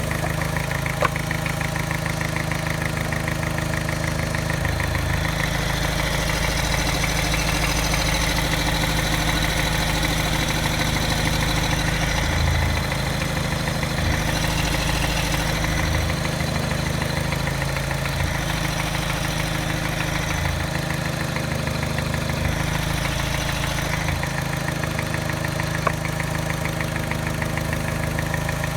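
Mini's engine idling with a mild, rapid tap and a very slight miss, a fault that persists despite a new timing chain, tensioner and piston rings. A sharp click sounds about a second in and again near the end.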